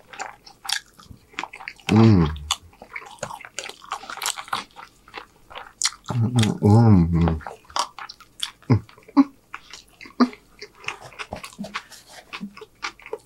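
Close-miked chewing of fried rice, with wet mouth clicks and smacks and the utensil clicking in the plastic bowl. Twice, about two seconds in and again around six to seven seconds in, there is a wordless hummed "mmm".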